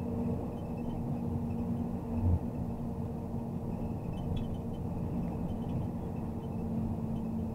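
MAZ truck crane's diesel engine running steadily under way, a low even drone, with a short low thump about two seconds in.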